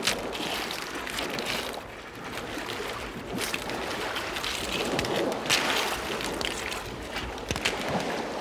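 Clam shells clacking against each other as they are handled by the handful and dropped into a woven basket and onto piles on stones. Wind and surf wash runs beneath.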